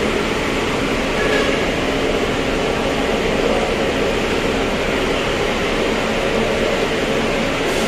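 Steady drone of large buses idling in their bays: an even mechanical hum with a few faint steady tones running through it.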